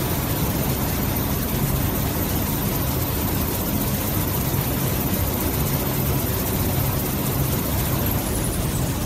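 Toilet tissue roll production line running: rewinding machine, log accumulator and conveyors give a steady low mechanical hum under an even rushing noise.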